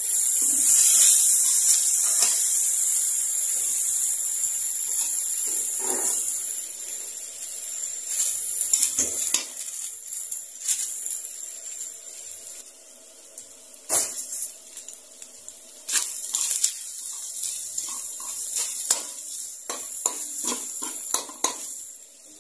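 Ground pork sizzling in hot oil in a large aluminium wok, the sizzle loudest over the first several seconds and then softer. A metal spatula scrapes and knocks against the pan now and then.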